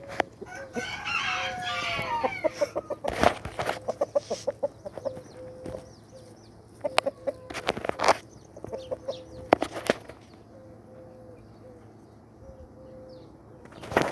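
Backyard chickens clucking in runs of short repeated notes, opening with a loud drawn-out call in the first two seconds. A few sharp knocks cut in along the way.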